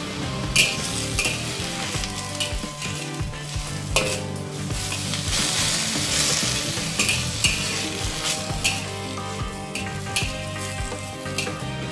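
Snow pea leaves and garlic sizzling in a hot wok, with a spatula stirring them and scraping against the pan in sharp strokes every second or so.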